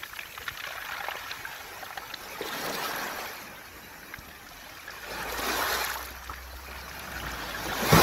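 Sea waves washing over a beach of round pebbles, swelling and drawing back every couple of seconds with a light rattle of stones.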